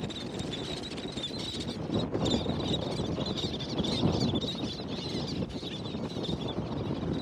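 Wind buffeting the microphone in a steady low rumble over a flock of terns and black skimmers calling continually with many short, high calls.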